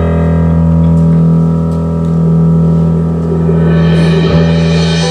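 Sustained electronic keyboard chords held over a deep steady drone, the opening of a live rock song. The chord grows brighter about four seconds in.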